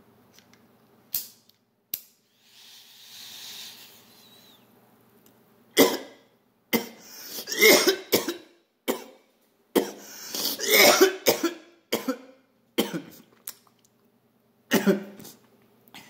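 A man coughing hard and repeatedly after a hit of cannabis and shatter from a glass pipe, the harsh coughs coming in bunches from about six seconds in. Before that, two short clicks and a soft hiss of a couple of seconds as the hit is taken.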